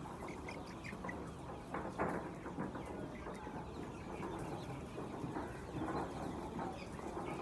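A large flock of chickens clucking and calling continuously, many birds at once, as in a poultry house; the loudest call comes about two seconds in.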